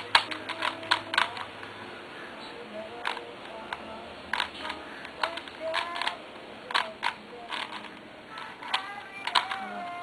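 Plastic 3x3 Rubik's Cube being turned fast by hand: sharp clicks of the layers snapping into place, singly and in quick bursts of several turns, at an uneven pace.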